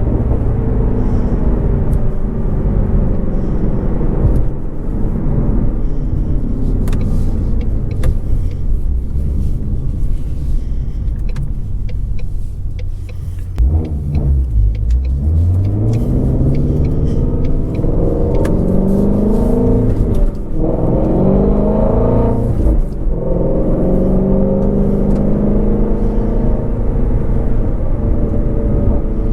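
Shelby GT350R's 5.2-litre flat-plane-crank V8 cruising steadily, then, about halfway through, accelerating hard with a rising engine note. The pull is broken by two quick gear shifts, after which it settles into a steady cruise.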